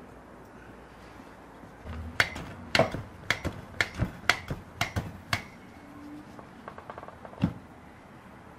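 A heavy meat pounder striking a beef steak on a wooden cutting board: about a dozen sharp blows in quick succession, three or four a second, then a single knock near the end.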